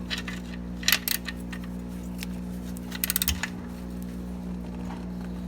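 Metallic clicking from a ratchet tightening a fastener by hand. There are a few clicks in the first second, then a quick run of clicks about three seconds in, over a steady low hum.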